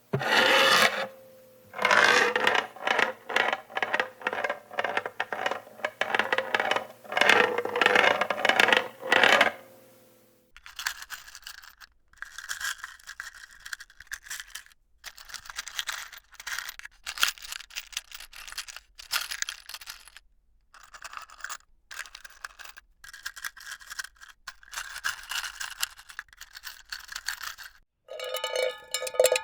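Small metal screws rattling and clinking in a box, shaken in repeated short bursts with brief pauses. The first ten seconds or so are louder and denser; after that the shakes are quieter. Near the end, screws rattle inside a metal can, which rings.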